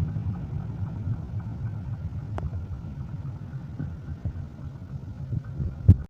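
Diesel locomotive engine rumbling low and steady, slowly fading. A sharp click comes just before the end, and then the sound cuts off suddenly.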